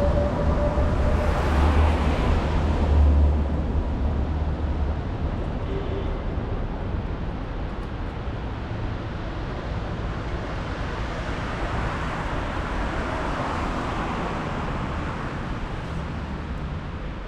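A heavy vehicle rumbles past close by in the first few seconds, with a faint steady whine that fades soon after the start. It gives way to steady street traffic noise.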